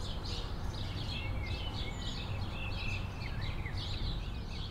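Small birds chirping and twittering, many short high calls and quick glides in pitch, over a steady low rumble of background noise.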